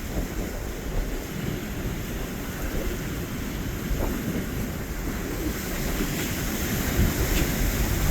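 Strong wind buffeting the microphone over rough surf, with low rumbling gusts that grow louder near the end.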